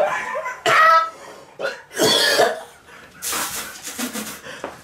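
A man coughing and sputtering in about three fits, a reaction to a mouthful of dry garlic powder.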